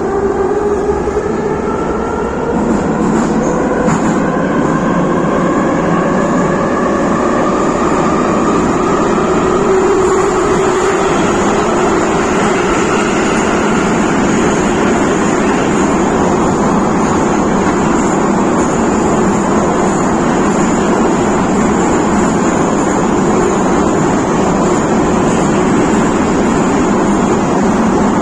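Type 81-717 metro train accelerating, its traction motors whining with a pitch that rises over the first ten seconds or so. The whine then gives way to a steady running noise of wheels on rails at speed.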